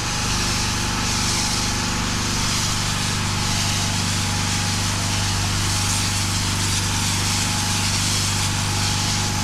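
Fuel-engined pressure washer running steadily, with the even hiss of water spraying from a low-pressure rinse nozzle.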